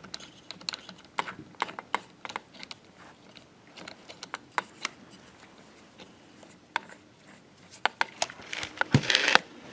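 Irregular light clicks and taps of small hard parts being handled, with a louder knock about nine seconds in.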